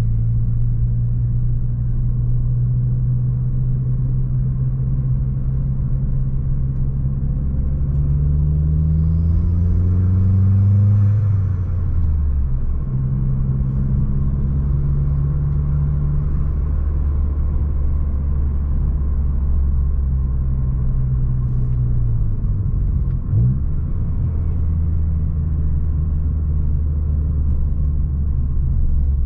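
Opel Astra G Bertone's turbocharged 2.0-litre four-cylinder engine pulling a car along at fairly steady revs. About a third of the way in the engine note rises under acceleration, then drops sharply at a gear change or lift-off. A brief quick swing in pitch comes again a little over two thirds of the way in.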